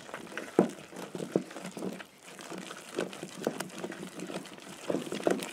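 A wooden spoon stirring flour into boiling water in an aluminium pot, making irregular scrapes and knocks against the pot.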